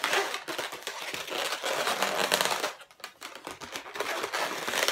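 Inflated 260 latex modelling balloons rubbing and crinkling against each other and the hands as a balloon flower is shaped, a dense crackly rubbing that stops briefly about three seconds in.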